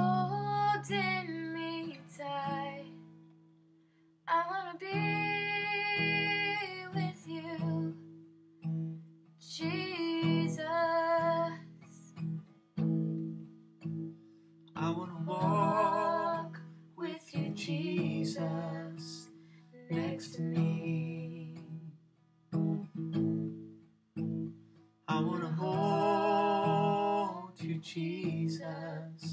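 Steel-string acoustic guitar strummed as a steady accompaniment while a young girl sings phrases of long held notes over it, with short gaps between phrases.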